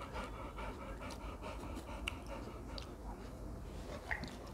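Rottweiler panting softly in quick, even breaths, with a few faint clicks.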